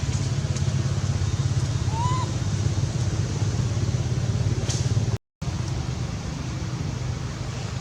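A steady low hum, like a motor running, with one short high squeak about two seconds in. The sound cuts out completely for a moment a little after five seconds.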